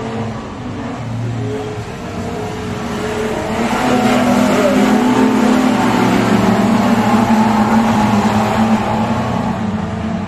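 Engines of several speedway sedan race cars running hard on a dirt track. The sound swells as the pack passes close, about three and a half seconds in, then eases near the end.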